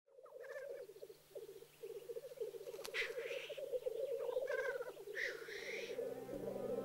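Black grouse bubbling: the male's continuous low, rapidly warbling lek song, with hissing calls about three and five seconds in. Music fades in near the end.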